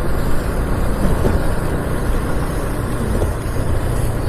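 Motorcycle running as it is ridden on a rain-wet road, its engine low under a steady rushing noise of wind and tyres.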